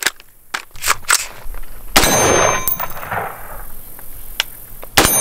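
Two rifle shots, each with a sharp crack followed by a steel target plate ringing as it is hit: one about two seconds in, the second near the end.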